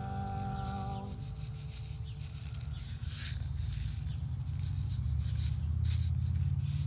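Carrot seeds being shaken from a paper seed packet, with faint brief rattling rustles about three and six seconds in, over a steady low rumble. A held musical note dies out about a second in.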